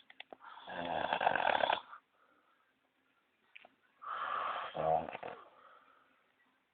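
Someone fast asleep snoring: two long snores about three seconds apart, with quiet breathing between.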